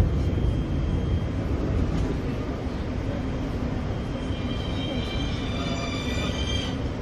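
Steady low rumble inside a Bucharest Metro carriage, with faint high whining tones joining from about four seconds in until near the end.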